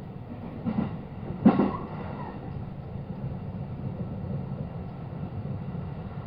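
JR West 223 series electric train running, heard from inside the passenger car as a steady low rumble. Two sharp knocks come about a second in, the second one the loudest.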